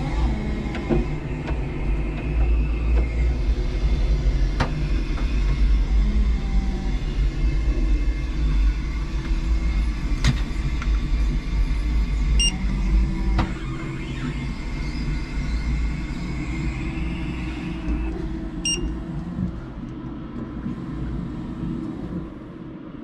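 A 5-ton electric forklift running, with a steady low hum and rumble from its motors and a few sharp knocks. It is loudest in the first half and eases off about 14 seconds in. A handheld barcode scanner beeps briefly about 12 seconds in and again near 19 seconds.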